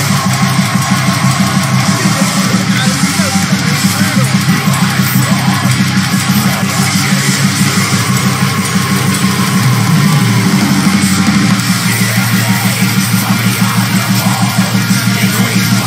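Heavy metal music playing loudly: distorted electric guitars over a fast, steady drum beat.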